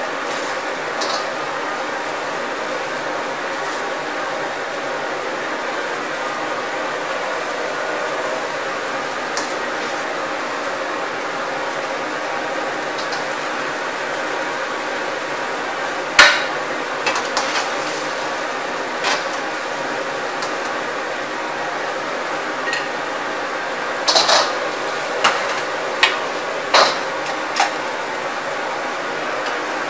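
Steady roar of a commercial gas wok range, with water boiling hard in the wok as cauliflower and carrots blanch. A metal strainer and utensils clank sharply against the steel wok once about sixteen seconds in and several times between about 24 and 27 seconds in.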